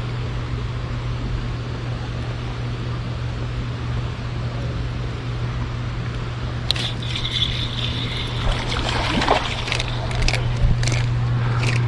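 Running river water with a steady low hum, and from about seven seconds in a run of sharp clicks and scraping.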